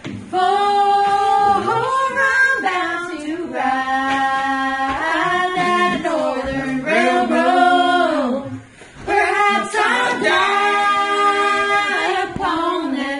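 Unaccompanied a cappella singing in long held notes, phrase by phrase, with short breaks between phrases.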